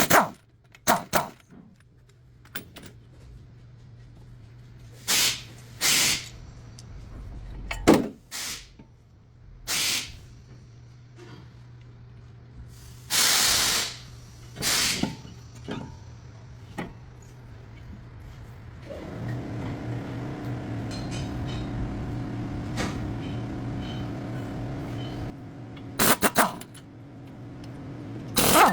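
Workshop brake-job sounds: short, sharp hissing spray bursts and knocks, one longer hiss about halfway through, then a machine running steadily for about six seconds in the second half.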